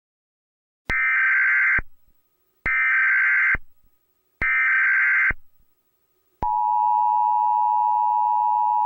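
Emergency Alert System tones: three short, buzzy data-header squawks about a second apart, then the steady two-tone attention signal coming in about six seconds in.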